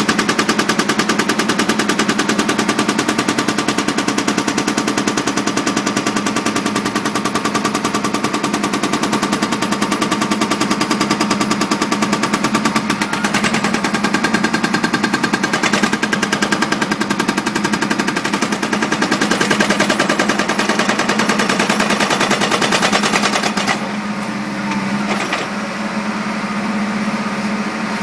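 Excavator-mounted hydraulic concrete breaker hammering in rapid, steady strokes over the excavator's engine hum. The hammering stops about 24 seconds in, leaving the engine running.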